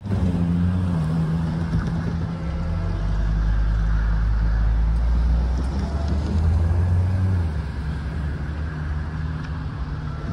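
A large engine running with a low, steady drone, easing off about seven and a half seconds in.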